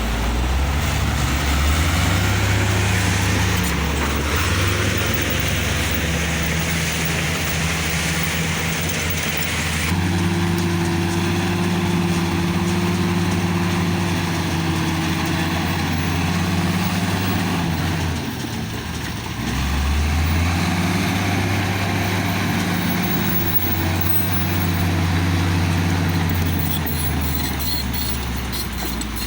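Komatsu D65E bulldozer's diesel engine running steadily, its pitch shifting with the throttle. It drops briefly about two-thirds of the way through, then picks up again.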